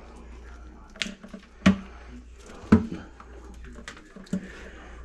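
About five sharp clacks and knocks, two of them loud, as gloved hands handle a grease-coated drain snake cable over a plastic bucket of debris cleared from a clogged kitchen drain.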